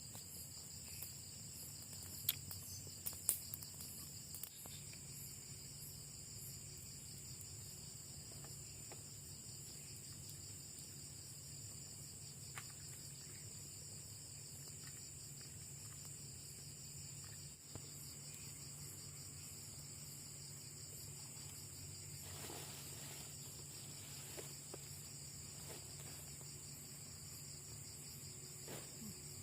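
Night insect chorus of crickets, a steady high pulsing trill. A few sharp clicks stand out about two to three seconds in.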